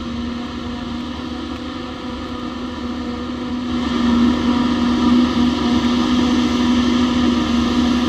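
New Holland tractor engine running under load, driving a PTO-powered JF 1000 forage harvester that chops standing corn for silage; a steady mechanical hum with an even rush of noise. It gets louder about four seconds in.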